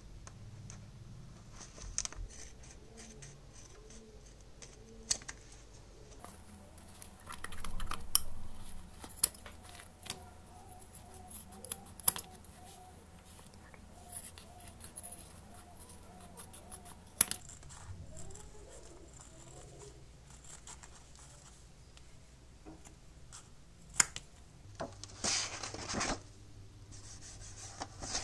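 Steel scissors cutting up an old leather wallet: scattered sharp snips and clicks of the blades closing, with a longer crunching cut about eight seconds in. Near the end, a brief rustling burst.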